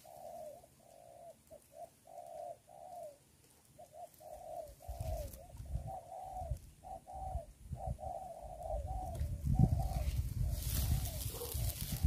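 Spotted dove (terkukur) cooing in a long string of short, repeated phrases. A low rumble of handling noise builds in the second half and is loudest near the end.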